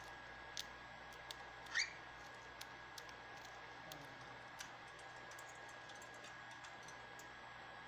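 Faint, irregular small clicks from a cockatiel moving and pecking in its cage, with one short rising chirp about two seconds in.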